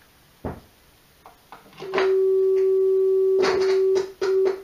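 A click, then a steady pure test tone from the Barbetta Model 3200 amplifier's speaker comes on about two seconds in. Near the end it crackles and cuts out twice as the plug is worked in the input jack: the dirty, intermittent input jack dropping the signal.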